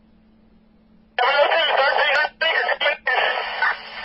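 Scanner radio: a low steady hum, then about a second in a narrow-band, unclear voice transmission comes over the speaker, with two short breaks.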